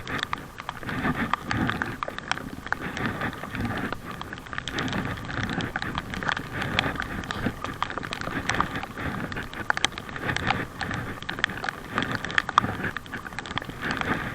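Water splashing and dripping around a packraft being paddled on a lake, with many small irregular splashes and drips.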